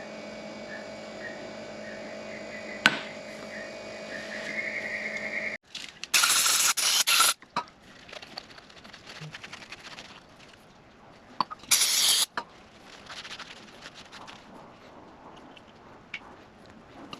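Short bursts of hissing spray as the parts of a caravan water pressure regulator are cleaned: one spell of several quick pulses, then a single shorter burst a few seconds later, with faint scraping and handling noises in between. Before the spraying there is a steady electrical hum that cuts off suddenly about five and a half seconds in.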